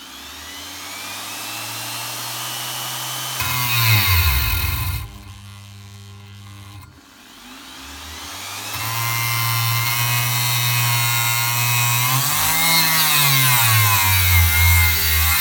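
Parkside PGS 500 A1 500 W die grinder whining as it spins a polishing wheel on a steel bar. Its pitch drops sharply as it bogs down against the metal about four seconds in, it goes much quieter for about two seconds, then it runs up again and sags once more near the end. The motor slows under contact at a low speed setting, so the speed dial has to be turned up.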